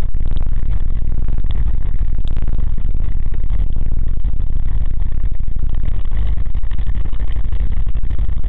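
Vehicle engine and road noise heard from inside the cab: a loud, steady low rumble with a fast flutter.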